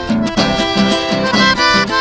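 Accordion playing a chamamé tune in C major, held chords over a steady, rhythmic bass.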